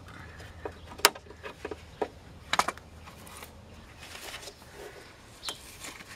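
Scattered short clicks and knocks from hands and tools working at the steering tie rod under a car, the sharpest about a second in and a quick cluster midway.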